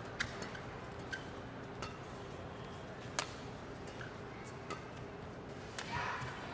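Badminton rally: sharp clicks of rackets striking the shuttlecock, spaced about a second or more apart, over a faint steady hall murmur.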